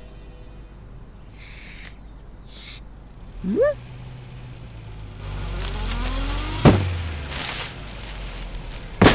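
Two short bursts of hiss, then a cat's single meow rising and falling in pitch. A low vehicle-like rumble follows, broken by a sharp knock, with sharp hits at the end.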